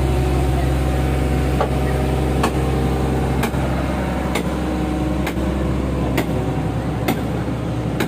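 Hitachi hydraulic excavator's diesel engine running steadily at close range, with a light tick about once a second.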